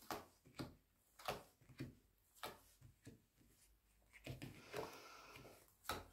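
Faint handling of tarot cards on a table: scattered soft taps and clicks, with a brief rustle of cards sliding a little after four seconds in.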